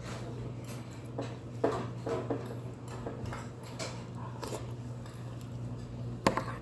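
Eating sounds: a metal spoon clinking and scraping in a heavy black soup bowl, with mouth noises of sipping and chewing between, over a steady low hum. A sharp spoon clink about six seconds in is the loudest sound.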